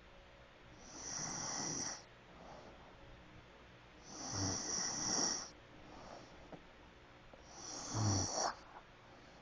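Snoring: three long snores, evenly spaced about three and a half seconds apart, each a raspy rise and fall with quiet breathing between.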